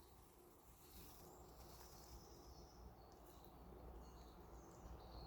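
Near silence with faint, scattered bird chirps in woodland.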